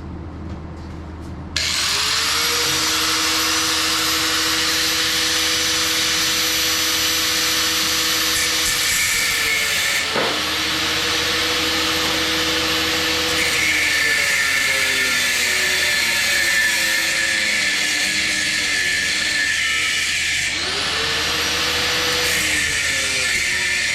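Power tool with a cut-off wheel starting up about a second and a half in and cutting through the steel tab of a brass water-heater pressure relief valve. Its motor whine sags in pitch several times as the wheel bites into the metal, over a harsh grinding hiss.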